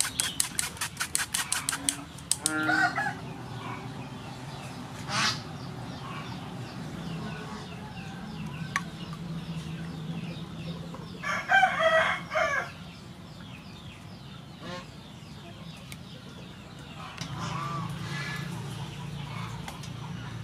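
Chickens clucking at intervals, with one loud call lasting about a second around the middle. For the first two seconds a spoon rapidly scrapes and taps against a metal mesh strainer, and there is a single metal clink about five seconds in.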